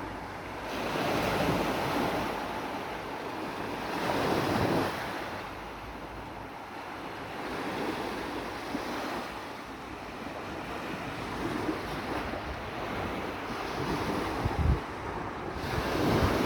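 Sea waves surging and breaking in a continuous wash, swelling about a second in, again around four seconds, and near the end. Wind buffets the microphone with low thumps.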